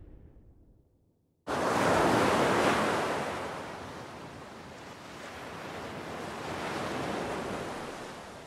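The tail of a deep explosion rumble fades out in the first second or so. Then ocean surf cuts in suddenly, loudest just after it starts, easing off and swelling again like a wave washing in near the end.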